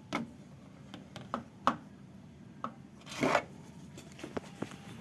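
Hand work on car parts: scattered sharp clicks and knocks, and a short scraping rub a little past three seconds in.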